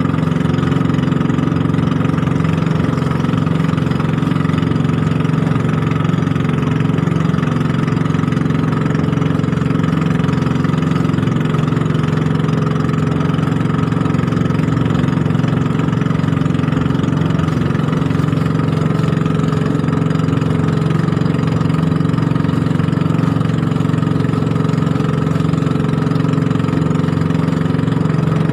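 Engine of a small outrigger fishing boat (bangka) running steadily under way, a constant drone that neither rises nor falls.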